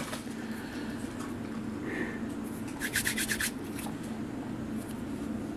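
Soft rubbing and handling noises over a steady low hum, with a quick run of light clicks about three seconds in.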